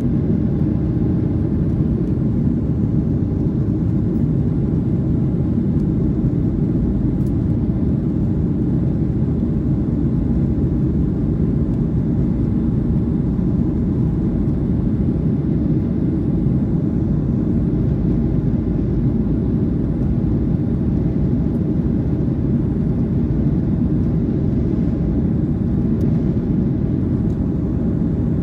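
Steady low rumble of a Boeing 737-800 airliner heard from inside the cabin, its CFM56-7B jet engines running. The sound is even, with no rise or fall.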